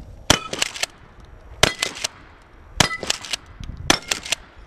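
Pump-action shotgun fired four times, a little over a second apart. Each shot is followed by the clack of the pump being worked, with brief metallic ringing from the steel targets.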